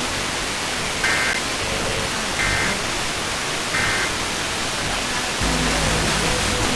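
Three short bursts of EAS end-of-message data tones (the two-tone digital 'NNNN' code), each a fraction of a second long and about 1.3 s apart, over the steady hiss of a weak FM radio signal. About five and a half seconds in, the station's music programming comes back in.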